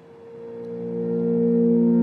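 Background music: a held, drone-like chord of steady tones that fades almost away right at the start, then swells back in over about a second and holds.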